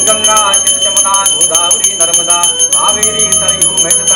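A puja hand bell rung rapidly and continuously, several strikes a second with a steady ring, over music with a wavering melody.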